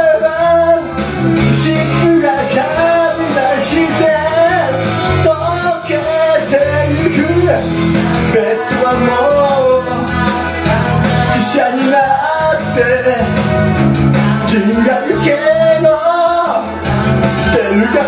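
A man singing karaoke into a handheld microphone over a pop backing track.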